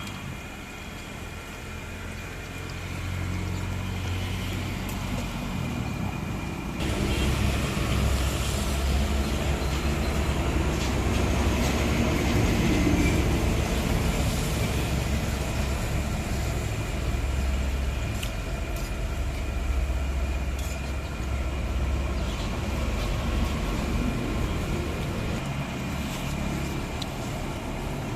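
Low, steady rumble of road traffic, louder from about seven seconds in, over an even hiss that fits cakwe dough frying in hot oil.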